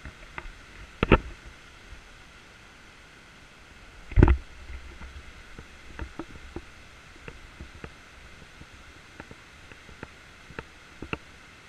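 Two heavy thumps, about a second and about four seconds in, then scattered light clicks and creaks from someone moving on a footbridge of tied bamboo poles and tree roots and handling the camera, over a steady low hiss.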